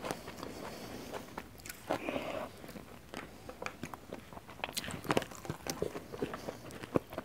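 Close-miked eating sounds: chewing with crunchy bites and many small sharp mouth clicks, with a soft rustle of fingers gathering rice from a banana leaf.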